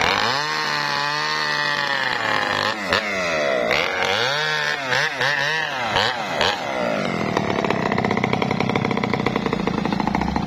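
Maestro mini chainsaw cutting through a tree trunk, its engine note dipping and rising as the chain bites into the wood; for the last few seconds it runs steadily with the saw out of the cut.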